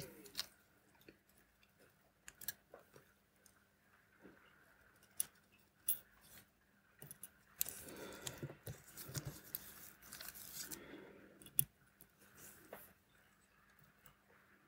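Small metal tools clicking and tapping on a mechanical watch movement as the barrel ratchet wheel is fitted and screwed down, with a spell of scraping and rustling in the middle and a sharp tick soon after.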